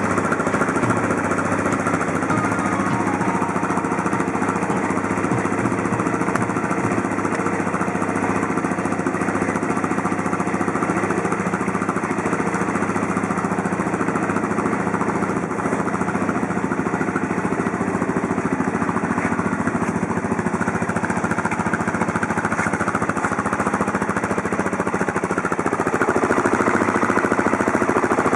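Suzuki LT-Z400 quad's single-cylinder four-stroke engine running steadily with a rapid pulsing chug, a little louder near the end.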